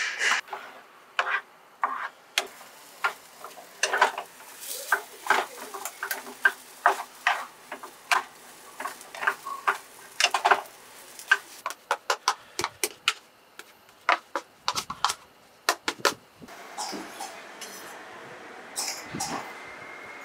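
Spatula knocking and scraping against a frying pan and a bowl as thick cassava fufu dough is stirred and shaped, with many short clacks in quick succession. About sixteen seconds in the clacks stop and a steady background noise takes over.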